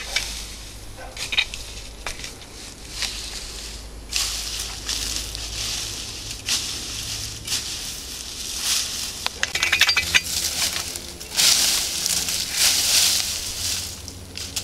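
Footsteps crunching and brushing through dry scrub, twigs and dead grass, uneven and coming and going, loudest a few seconds before the end.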